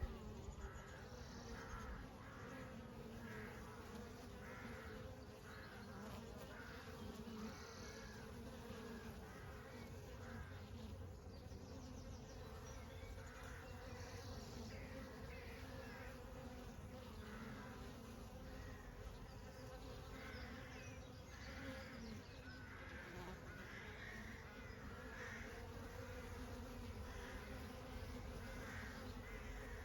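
Honey bees buzzing in a steady, fairly quiet hum, with short repeated chirps in the background.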